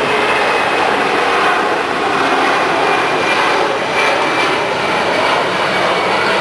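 Boeing C-17 Globemaster III's four turbofan jet engines, a loud steady roar as the transport flies past and banks away.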